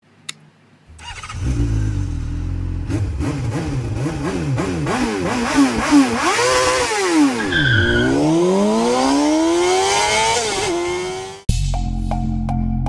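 A motorcycle engine revving in a string of quick blips, then falling back and climbing in one long rise as it accelerates. About eleven and a half seconds in it cuts off abruptly and music with a steady beat starts.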